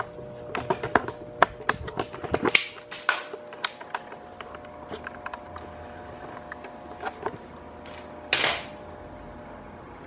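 Ventisilva VENTI50P 50 cm wall fan running, its motor giving a steady electrical hum with a faint frequency tone. There is a run of clicks and knocks in the first four seconds and a short rustle about eight seconds in.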